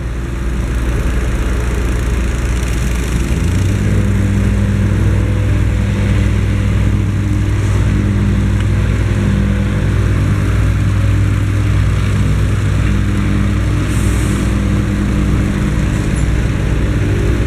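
Diesel engine of heavy asphalt paving machinery running loud and steady. About three and a half seconds in it steps up to a higher engine speed and holds there.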